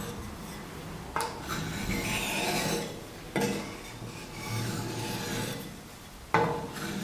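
Steel cleaver blade being sharpened on an oiled fine-grit whetstone: long scraping strokes of the edge across the stone, with a sharp click about a second in, another about three and a half seconds in, and one near the end as the blade meets the stone again.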